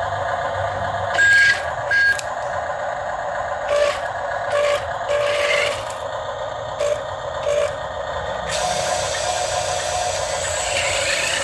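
Small electric gear motors of a remote-control model crane truck whirring in stops and starts, with two short high beeps about a second and two seconds in.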